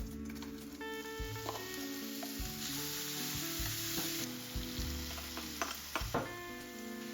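Food sizzling as it is stir-fried in a pan, with a few clicks of the utensil against the pan. The sizzle swells for a second or two midway.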